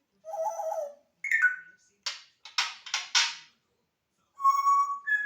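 African grey parrot vocalizing: a short talking-like phrase, a brief falling whistle, four short harsh bursts in quick succession, then a clear held whistle that steps up in pitch near the end.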